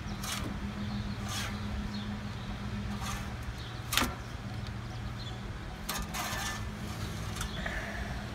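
Steel-braided engine oil dipstick sliding in and out of its tube, with several short scrapes and one sharp click about four seconds in as it seats, over a steady low hum.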